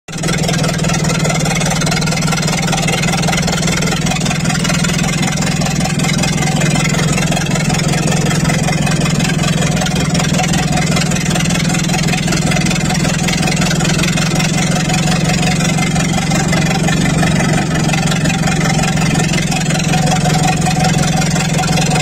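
Small two-wheel tractor's engine running steadily under way, heard close up from the driver's seat.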